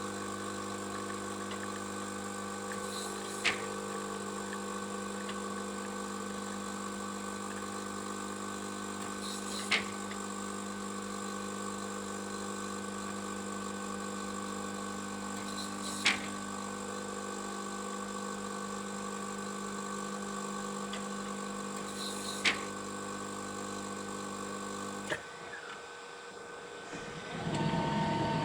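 Coffee machine running with a steady mechanical hum and a short sharp tick about every six seconds. The hum cuts off abruptly near the end, and a louder whirring with a clear tone starts soon after.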